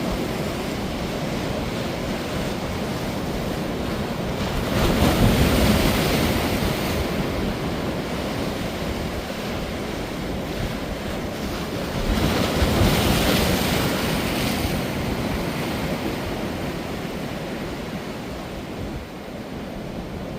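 Ocean waves breaking on a beach in high surf, a steady wash with two louder breakers, about five seconds in and again about twelve seconds in, each fading out over a few seconds. Wind buffets the microphone.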